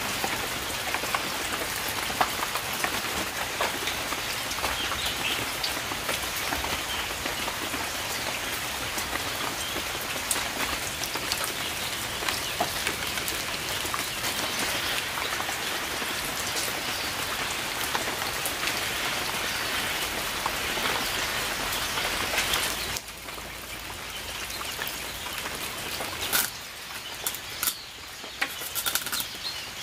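Steady rain falling on a wet concrete yard and into puddles, drops pattering on the water. A little over two-thirds of the way through it turns quieter, with a few sharper ticks near the end.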